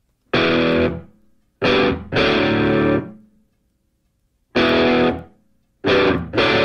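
Music: distorted electric guitar playing a handful of held chords, each struck hard and left to ring out, with short silent gaps between them.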